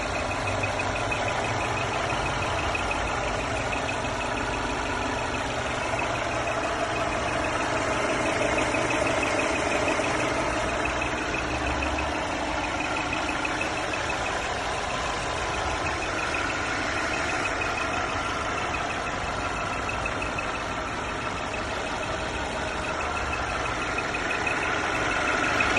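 Mercedes E350 Coupé engine running steadily with a whistle over it: several steady high tones sit above the engine sound, one of them faintly pulsing, the whistling engine noise the owner is documenting.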